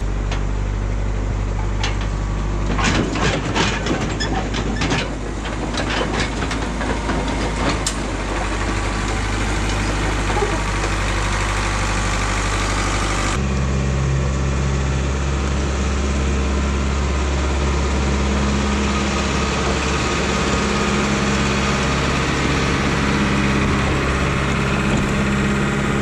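A 1988 Caterpillar D4C crawler dozer's diesel engine running steadily, with a run of metallic clanks from its steel tracks between about two and eight seconds in. About 13 seconds in the engine note changes abruptly, then holds steady again.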